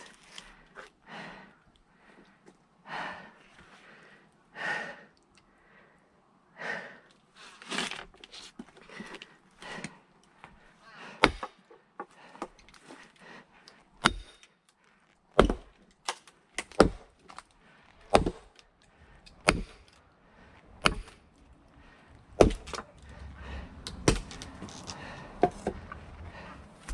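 Hand splitting of firewood: heavy breathing for the first several seconds, then about ten sharp strikes on the log, roughly one every second and a half.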